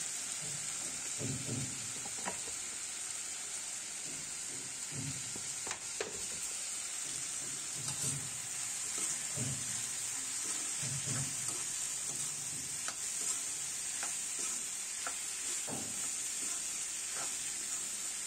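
Vegetables frying in oil in a black kadai with a steady sizzle, stirred with a spatula that scrapes across the pan every second or two and now and then clicks against its side.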